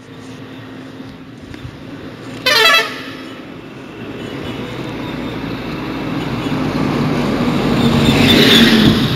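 A short, loud horn toot about two and a half seconds in, over a steady rushing noise that grows louder toward the end.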